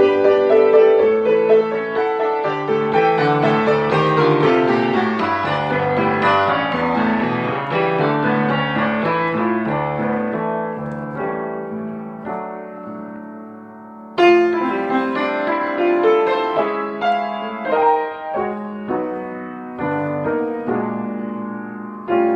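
Solo piano music: a flowing run of notes that slowly fades, then a sudden loud chord about two-thirds of the way through, followed by slower, separate struck chords.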